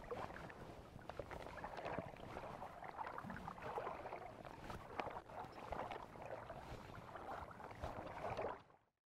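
Water sloshing and splashing around a person's legs as they wade slowly through shallow water in waders, with small irregular splashes. The sound cuts off to silence just before the end.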